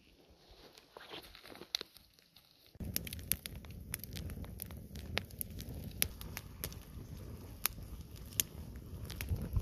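Open wood fire burning, crackling and popping with many sharp irregular snaps over a steady low rumble, starting abruptly about three seconds in. Before that, only faint quiet sound with a few soft clicks.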